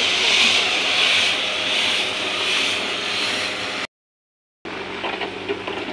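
Rice grains rushing and rattling as they tumble inside the rotating drum dryer of a puffed-rice (muri) roasting machine, a steady hiss that swells and eases about once a second. It cuts out for under a second about four seconds in, then returns quieter with sharp rattling ticks.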